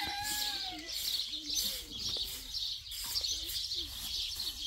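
Small birds chirping in a continuous high chatter. A rooster's crow trails off in the first half-second.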